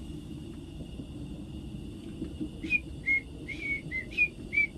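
A person whistling a tune in short notes, starting a little past halfway, over a steady low rumble.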